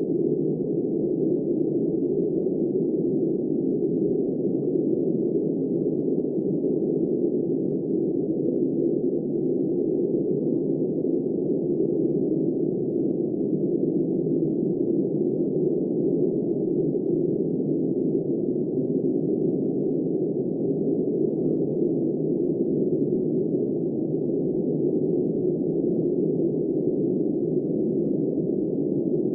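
Snowstorm wind as a steady, muffled rushing noise, low in pitch with no hiss, holding an even level without gusts.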